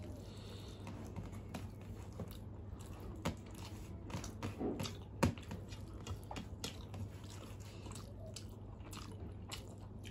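Chewing and mouth sounds of people eating rice and curry by hand, with scattered short clicks and squishes as fingers mix rice on steel plates. A steady low hum runs underneath.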